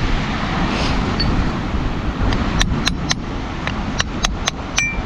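Wind rumbling on the microphone, with a quick run of about eight sharp clicks in the second half, hard taps of shell or stone on the shoreline rocks.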